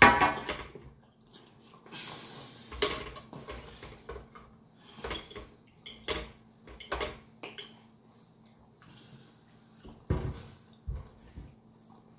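Eating at a table: chewing with scattered clicks and clinks of a fork and fingers against glass plates, and one heavier thump about ten seconds in.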